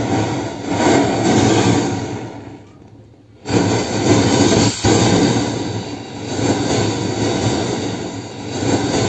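Homemade copper-coil alcohol stove burning with a large flame, giving a loud, rough rushing noise that surges. The noise drops away briefly about three seconds in and comes back abruptly, with a single sharp click a little later.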